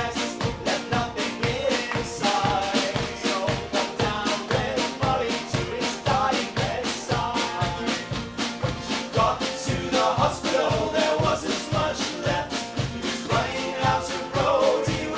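Instrumental break in a band's recording of a song, with a steady quick beat under a melody line.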